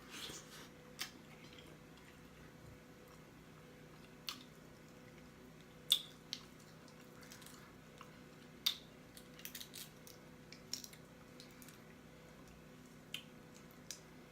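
Close-up mouth sounds of someone eating: quiet wet chewing with about a dozen sharp lip smacks and pops scattered irregularly.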